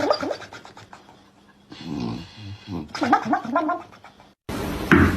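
A dog vocalizing in drawn-out, wavering whines and grumbles, in two bouts. Just over four seconds in, a short drop-out gives way to a louder, noisy sound with a few knocks.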